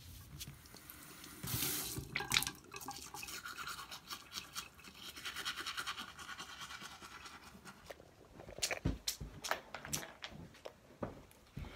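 Teeth being brushed with a manual toothbrush: quick, rapid back-and-forth scrubbing strokes. Near the end the brushing gives way to a few louder knocks and handling thumps.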